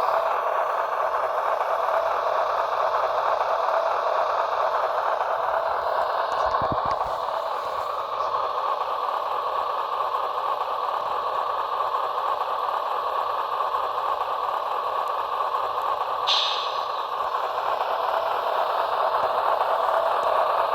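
Sound-equipped HO scale Union Pacific Dash 9 model locomotive playing its diesel engine running sound through its small onboard speaker, a steady mid-pitched drone. A brief hiss comes about sixteen seconds in.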